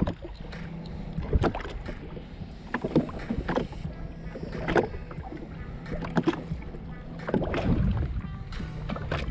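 Small waves slapping and lapping against the hull of a drifting Sea-Doo GTX jet ski, in irregular splashes over a steady low rumble.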